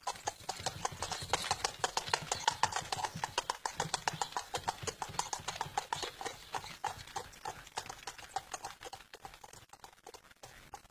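Horse's hooves clip-clopping at a quick, even pace on a hard road, fading away over the last few seconds.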